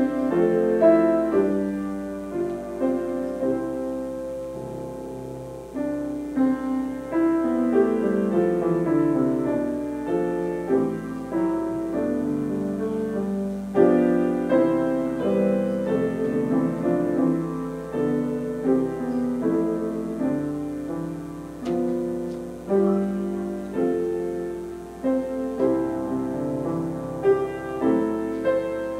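Grand piano played solo: chords and melody notes struck and left to ring, with no other instrument or voice.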